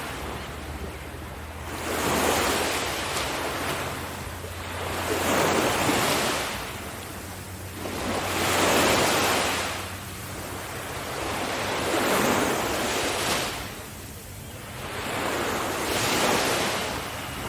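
Sea waves breaking and washing on a beach, the surf swelling and falling back about every three to four seconds.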